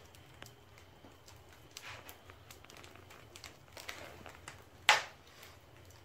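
Wood fire crackling in the open firebox of a bath stove, with scattered small pops and one loud sharp crack about five seconds in, the kind that throws embers out of the open door.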